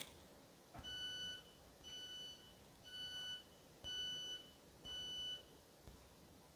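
A train's door warning sounder beeping five times, about one beep a second, each a short high tone, the usual signal that the doors are about to close at a station stop. A short knock comes just before the first beep.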